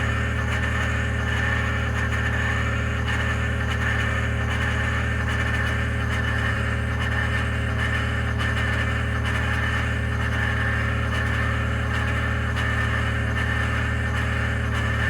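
2021 Ford F-150 PowerBoost's twin-turbo V6 running steadily on a cold start, a constant deep hum with a steady hiss above it. The owner is recording it for a cavitating or grinding noise at cold start.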